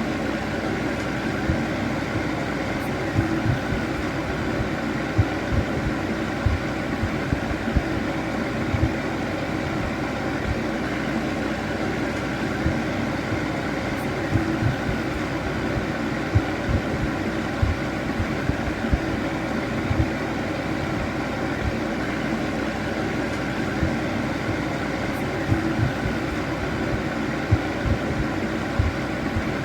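Electric fan heater running steadily: a constant whirring hum with a few steady tones in it, broken by frequent irregular low thumps.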